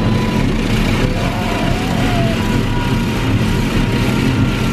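Touchless car wash machinery and water jets spraying a minivan, heard from inside the cabin: a loud, steady rushing hiss over a low drone. A toddler cries faintly through it about a second in.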